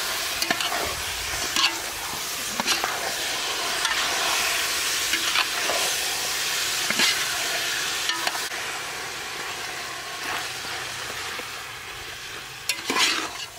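Raw goat meat frying in hot chili and lemongrass paste in a metal pot, sizzling steadily while a metal ladle stirs it, scraping and knocking against the pot now and then. The sizzle eases toward the end, with a quick run of ladle scrapes near the end.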